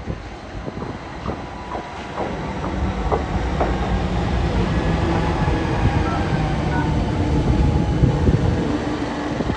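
Pacific National NR class diesel-electric locomotive (a GE Cv40-9i with a V16 diesel) running past light engine. Its engine hum grows steadily louder as it draws level, peaking near the end, with a few sharp clicks in the first four seconds.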